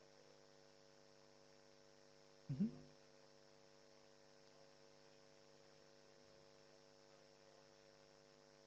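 Near silence apart from a steady electrical mains hum, a low buzz made of evenly spaced steady tones. One short falling sound comes about two and a half seconds in.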